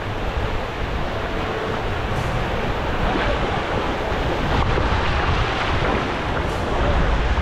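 Surf washing onto the beach, with wind buffeting the microphone in a steady low rumble.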